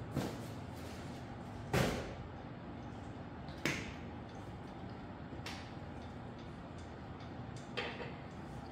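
Scattered sharp clicks and knocks as a folding e-bike's parts are handled and fitted by hand during assembly, about five in all, the loudest about two seconds in.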